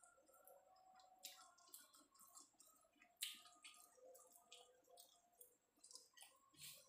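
Faint, scattered wet clicks and smacks of a person chewing a mouthful of food, with fingers picking at rice on a plate.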